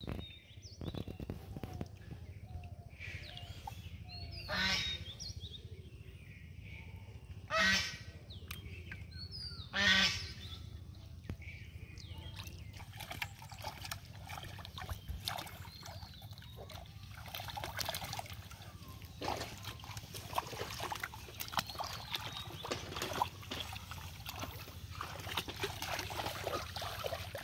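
Three loud calls from domestic waterfowl, a few seconds apart, followed by scattered splashing and sloshing in shallow muddy water.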